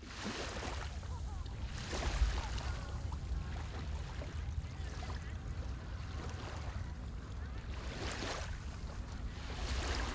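Wind and the sea around a boat on open water: a steady low rumble with wind buffeting the microphone in gusts, the strongest about two seconds in and again near the end.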